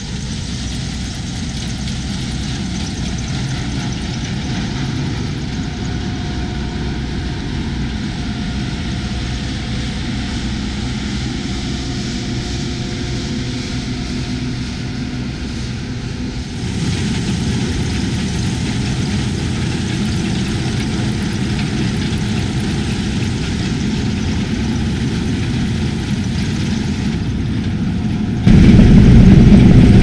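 Combine harvester running while cutting oilseed rape: a steady, low engine-and-machinery drone. It turns much louder in the last second or two.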